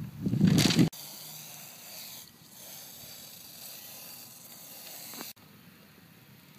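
Aerosol spray-paint can hissing steadily as black paint is sprayed onto a styrofoam ball, with a short break about two seconds in, cutting off sharply after about five seconds. A louder, deep noise fills the first second.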